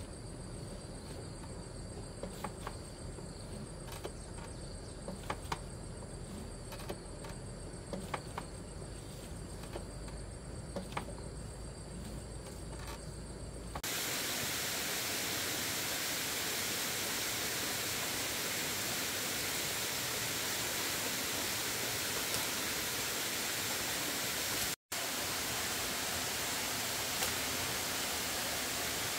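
Scattered sharp clicks and knocks over a faint, steady high-pitched whine and a low rumble. About halfway through, this cuts off suddenly and a loud, steady rushing noise takes over, with a brief dropout near the end.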